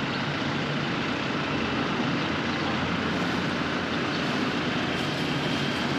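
Steady rushing road and wind noise of a moving vehicle, with no engine note or other event standing out.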